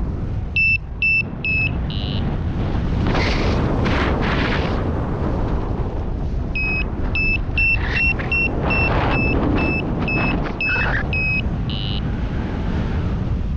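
Paragliding variometer beeping its climb tone: a few short high beeps, then a run of about two beeps a second, which signals rising air. Heavy wind noise on the microphone runs underneath.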